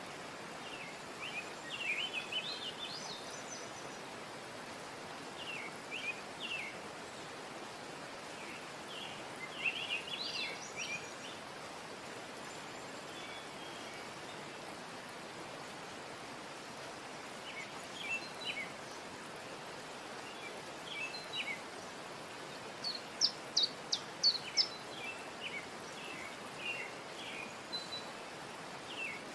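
Birds chirping in short bursts of quick, gliding notes every few seconds over a steady hiss, with the loudest run of sharp chirps about three-quarters of the way through.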